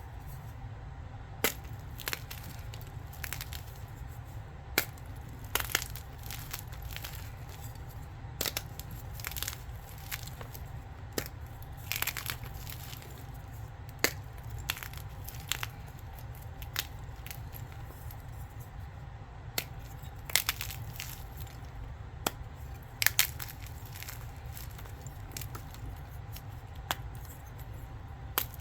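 Gym chalk being crushed: irregular sharp crunches and cracks, one or two a second and some in quick clusters, over a steady low rumble.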